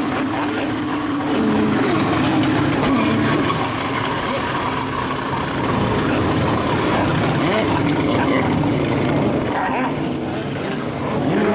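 Stand-up jet ski engines running and revving, their pitch rising and falling as riders carve and spin, over the rush of water spray.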